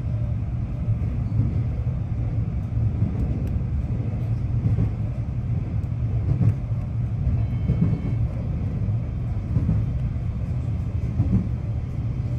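Steady running noise inside a moving electric train: an even low rumble of the wheels on the rails and the car body.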